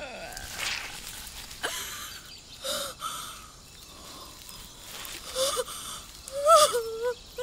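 A woman breathing hard in gasps and wheezes, several separate breaths, ending in a short moaning cry about six and a half seconds in, which is the loudest sound here.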